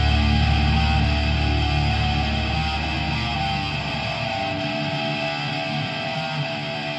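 Avant-garde black metal: guitar chords ringing over a deep bass that drops away about four seconds in, the whole slowly getting quieter.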